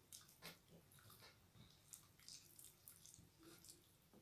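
Faint, wet squishing and small clicks of fingers mashing and mixing soft, starchy boiled rice (fena bhat) on stainless steel plates, in many short scattered ticks.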